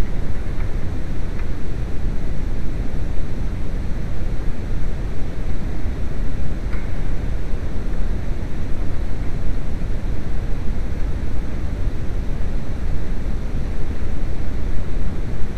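Steady low rushing noise with a few faint, short clicks.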